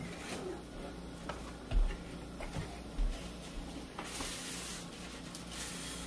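Quiet kitchen handling sounds: a few dull knocks and small clicks, then wax paper crinkling as a sheet is pulled off the roll about four seconds in.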